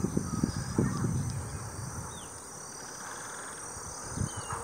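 Faint marsh ambience: a few short, thin bird chirps, one of them falling in pitch, and a brief fast trill, over a low rumble that fades away during the first two seconds.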